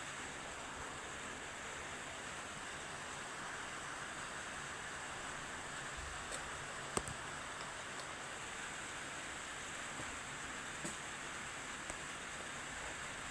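Steady hiss-like noise with a few faint clicks, the clearest about seven seconds in.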